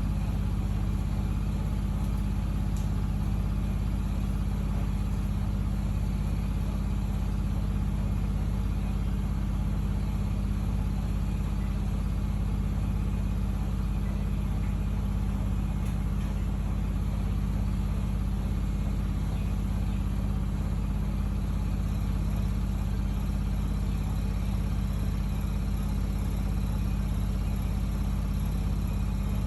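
Miele washing machine with an inverter-driven motor spinning its drum at a steady speed during an interim spin: an even, unchanging low hum with a whirring rush above it.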